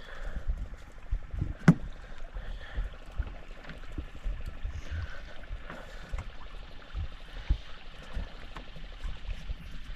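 Sound aboard a fishing boat at sea: a steady wash of water and air with irregular low thumps, and one sharp knock a little under two seconds in.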